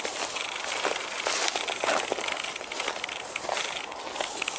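Footsteps pushing through dry grass and low shrubs, with an irregular crackling and rustling of stems and leaves.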